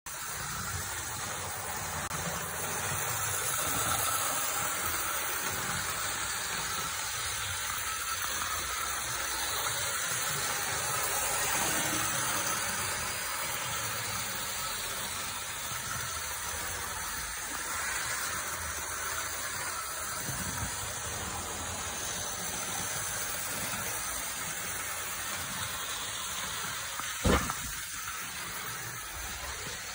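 Hornby OO gauge Flying Scotsman model locomotive running on the layout: a steady whirring hiss from its small electric motor and wheels on the track. A single sharp click near the end.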